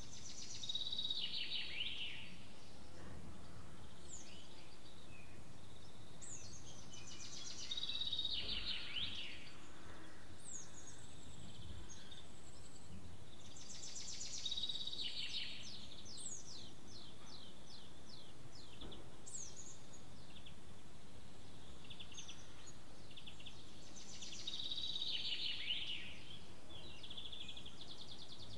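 Songbirds singing: one bird repeats the same short song phrase four times, roughly every six to ten seconds, with other birds' chirps and a quick run of descending notes in between. Under the song runs a steady faint background noise.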